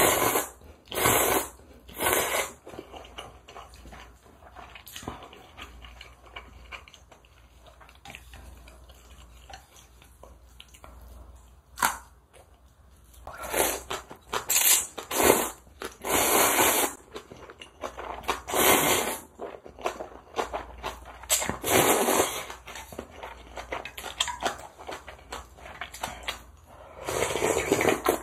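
A person slurping spicy instant ramen noodles in a series of short, loud slurps, with quieter chewing between them. Near the end comes a slurp of soup from a spoon.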